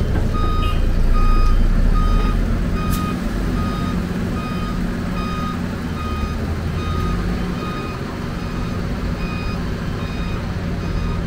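Reversing alarm of a heavy construction vehicle beeping steadily, about three beeps every two seconds, growing fainter about four seconds in, over the steady low hum of a heavy engine running.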